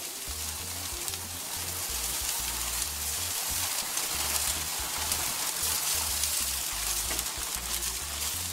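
Steady hiss of heavy rain pouring down on and around an outdoor grill, with an on-and-off low rumble underneath.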